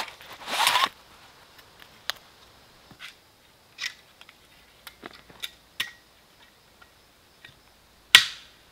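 Agawa Boreal 24 folding bow saw being drawn from its nylon sheath with a brief rasp, then unfolded: a run of light metal clicks and ticks as the frame arms swing out and lock, and one loud metallic snap near the end as the frame is locked tight.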